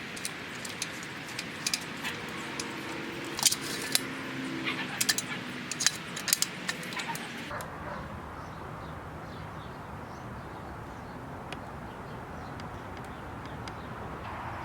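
Metal parts clinking and tapping against each other in a quick irregular series of sharp clinks. After about seven seconds this gives way to a steady low background noise with only an odd tick.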